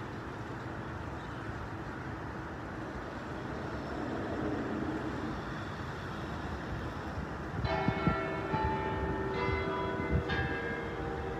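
Steady hum of city road traffic with buses, then about two-thirds of the way in, tower bells start ringing, a series of strikes roughly one a second whose tones ring on over one another.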